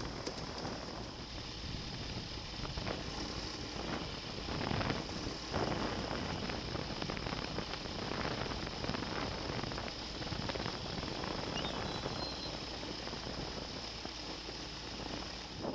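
Pegasus Quantum 912 flexwing microlight trike taxiing on grass, its Rotax 912 engine running steadily at low power, with occasional knocks as the trike rolls over the turf.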